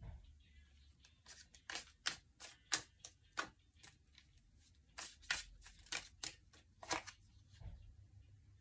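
A deck of tarot cards shuffled hand to hand, the cards snapping against each other in a string of quick, irregular clicks, two or three a second, with a short pause about halfway through.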